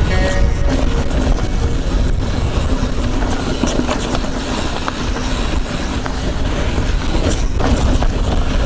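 Wind rushing over a chest-mounted action camera's microphone mixed with tyre noise from a YT Izzo mountain bike rolling down a dry dirt trail: a loud, steady rumble, with a couple of sharper knocks about two seconds in and again near the end.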